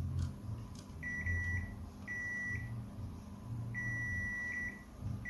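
Multimeter continuity beeper sounding in irregular beeps of different lengths, a short one, another short one, then a longer one, as the probes make and break contact on circuit points. A low rumble comes and goes underneath.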